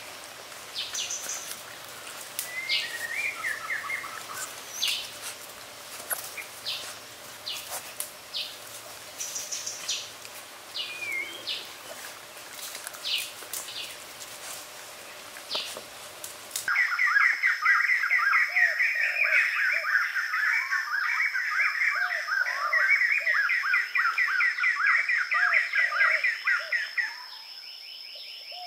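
Birds chirping outdoors, scattered calls and short glides with a few sharp clicks. About two-thirds of the way through the sound cuts abruptly to a louder, dense stretch of rapid trilling chirps over a steady high tone, which stops shortly before the end.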